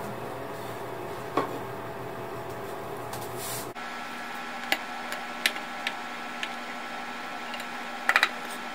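Steady kitchen room-tone hum with a few light clicks, then a quick run of three taps near the end as flour goes into the glass bowl.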